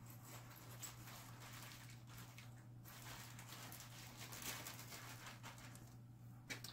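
Near silence: a faint steady low electrical hum, with light rustling and handling noise.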